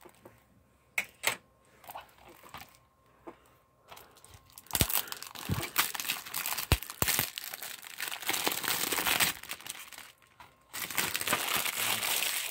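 A few light clicks, then plastic shrink-wrap crinkling and tearing as it is picked open and peeled off a DVD case, with a brief pause near the end.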